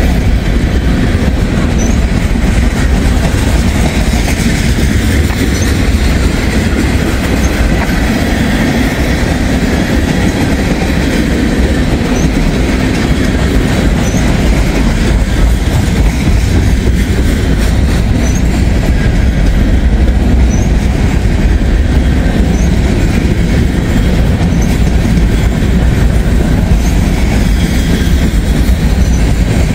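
Freight train of covered hopper cars and tank cars rolling past slowly at close range: a steady rumble of wheels on rail.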